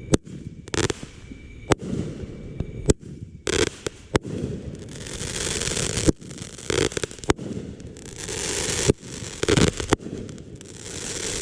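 Consumer multi-shot aerial fireworks cake firing: sharp bangs from the shells bursting, irregularly about once a second, with longer stretches of crackling between them.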